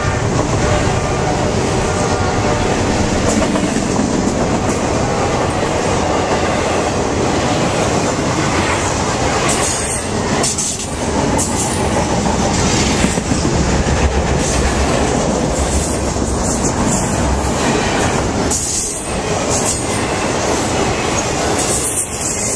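Intermodal freight train's cars, trailers on flat cars, rolling past at close range: a loud, steady rumble and rattle of steel wheels on the rails, with clacking over the rail joints.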